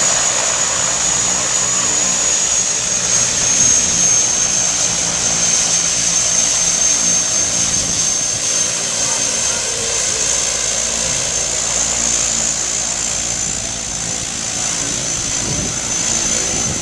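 Pilatus PC-6 Turbo Porter's turboprop engine running at taxi power as the aircraft moves close by: a steady high turbine whine over the propeller's drone, the whine dipping slightly near the end.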